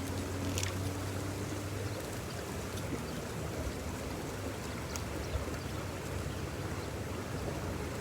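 Steady rush of a small creek's running water, with a few faint ticks and a faint low hum during the first two seconds.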